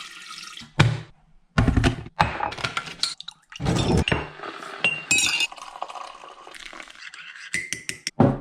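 Crockery being handled while making coffee: a mug and spoon clinking and knocking several times, with short stretches of scraping or rustling in between.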